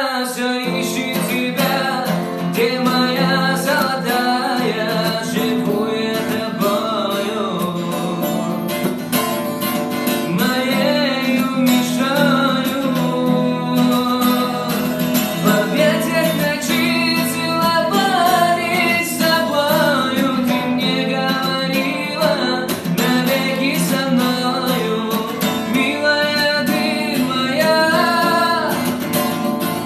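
Guitar playing the song's melody over plucked accompaniment, with bending, sliding lead notes.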